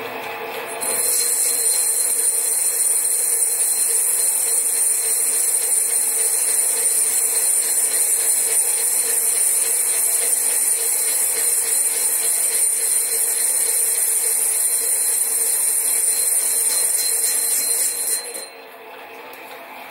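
Sieg SC4 lathe turning a cast-iron Stuart 10V flywheel at about 200 RPM, an aluminium-type carbide tip cutting the metal: a steady scraping cutting noise with a thin high whine starts about a second in and stops shortly before the end as the cut ends.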